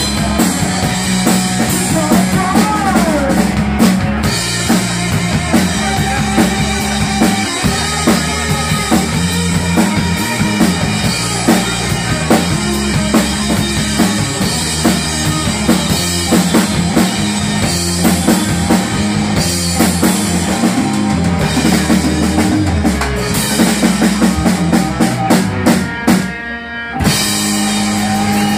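Live rock band playing a full drum kit and electric guitar. Near the end the music stops for about half a second, then comes back in.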